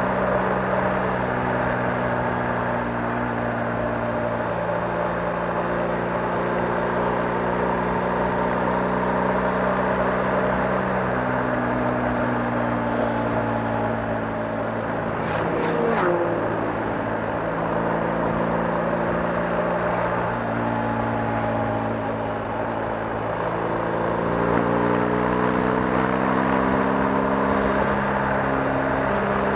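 BMW R 1250 GS's 1254 cc boxer twin running while ridden, its note holding steady and then stepping to a new pitch several times, over a steady hiss of road and wind noise. A few sharp clicks about halfway through.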